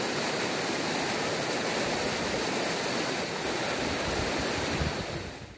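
River water rushing over rocks: a steady hiss of flowing water.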